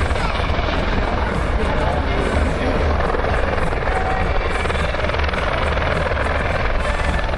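Eurocopter EC120B Colibri helicopters flying overhead: a steady, loud rotor beat over the whine and rush of their turboshaft engines.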